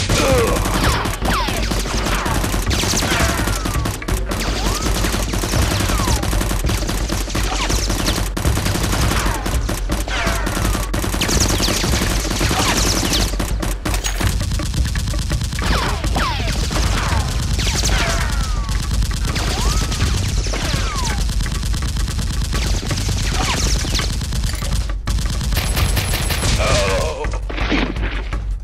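Sustained rapid gunfire sound effects: dense, overlapping automatic shots with many falling whistles through them, dubbed over a Nerf blaster firefight.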